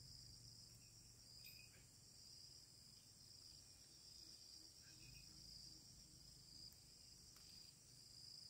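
Faint, steady high-pitched chorus of insects such as crickets.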